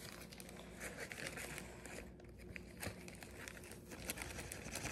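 Faint, irregular crinkling and rustling of a bag being handled as a scoop of flour is put into it, with a few small clicks.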